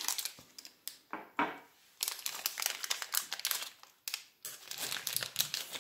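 Packaging crinkling and rustling as it is handled, in several spells of crackling with short pauses between them.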